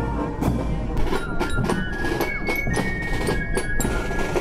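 Parade marching band (Spielmannszug) playing a march: a steady beat on bass drum and drums under high held flute notes.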